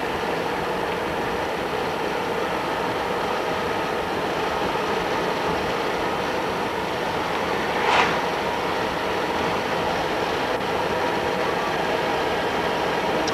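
Steady road and wind noise of a car in motion, with rattling, and one brief sharp sound about eight seconds in.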